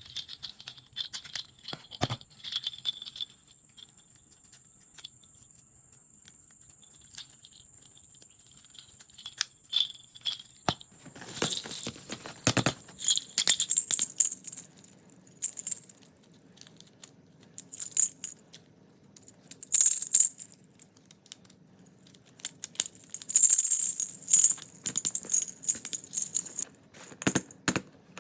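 Small plastic toy blocks clicking and rattling as they are handled and fitted together, with scattered sharp ticks and, from about eleven seconds in, louder bursts of clattering and rustling.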